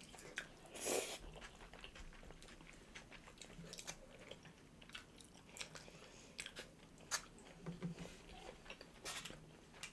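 Close-miked chewing and biting as two people eat forkfuls of fries and rice, faint, with scattered small crunches and soft clicks.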